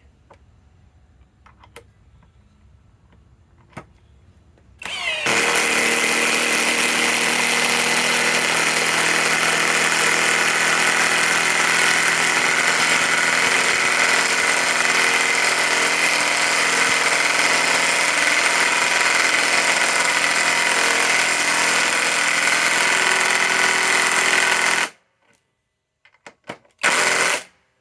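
Hercules HCB84B2 cordless compact impact wrench on high speed, hammering steadily for about twenty seconds as it drives a 5-inch lag bolt, then stopping abruptly.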